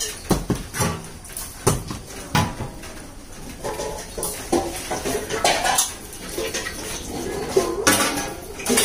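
Metal pots and utensils clattering, with a few sharp knocks in the first couple of seconds and more near the end, mixed with bits of voice.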